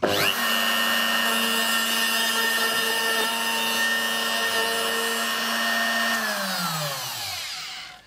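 Makita RT0700C trim router with a 13 mm straight bit switched on, running at a steady high speed with a whine while plunged a short way into the plywood. It is switched off about six seconds in and spins down, its whine falling in pitch.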